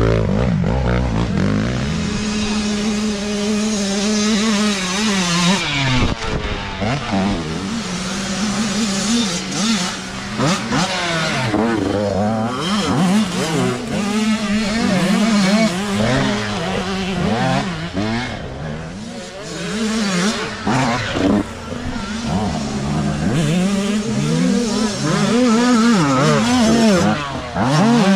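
Youth dirt bike engines revving hard as the riders climb a dirt trail, the pitch rising and falling again and again, with more than one bike running at once.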